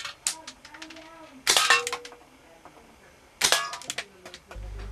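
Two shots from a Bell 357 (EG718) gas-powered shell BB revolver, about two seconds apart, each a sharp crack followed by a quick rattle of clinks as an aluminium can is hit and knocked over.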